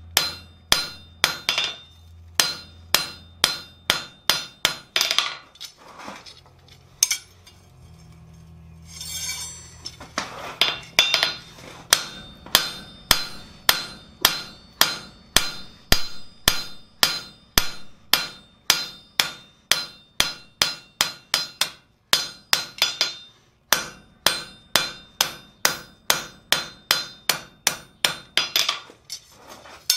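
Hand hammer striking red-hot steel bar stock on an anvil, a steady run of ringing blows about two to three a second, broken by a few short pauses. The blows draw out the stock for a pair of blacksmith's tongs.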